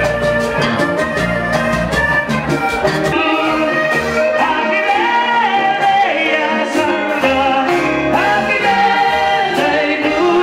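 Live vallenato band music with a male lead singer singing into a microphone over the band's percussion; the deep bass drops back about three seconds in as the sung melody comes forward.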